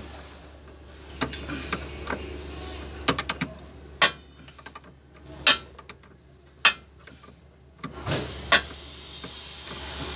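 Steel combination wrench clinking against a nut and the metal bracket of a truck's hydraulic cab-tilt cylinder while being fitted and worked on the nut: a series of sharp metallic clicks at irregular intervals, a few ringing briefly.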